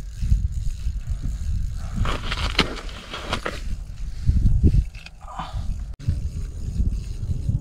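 Wind buffeting the microphone as a steady, uneven low rumble. About two seconds in there is a stretch of rustling and scraping lasting a second and a half.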